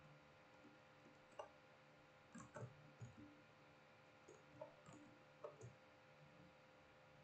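Near silence: faint, irregular clicks and light taps, about nine in all, mostly between one and six seconds in, over a steady low electrical hum.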